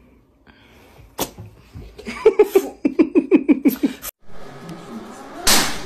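A person laughing hard in a quick run of short 'ha-ha' bursts, after a sharp click about a second in. The laugh cuts off suddenly, and a short rush of noise comes near the end.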